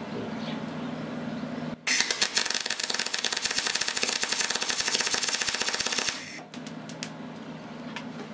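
Decastar 150E MIG welder laying a gas-shielded bead on thin sheet steel: the arc starts about two seconds in, crackles fast and evenly for about four seconds, then cuts off suddenly.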